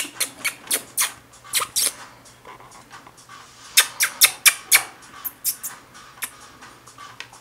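Pet rat at the wire bars of its cage, making an irregular run of sharp clicks and scratches, loudest in a quick cluster about four seconds in.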